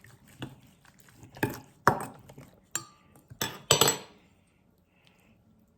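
Spoon and bowl knocking and clinking as they are handled, about half a dozen sharp knocks in quick succession, one with a short ring.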